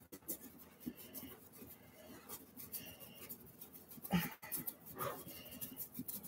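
Faint rubbing of hands over a wet vinyl reborn doll head, with a few short squeaks.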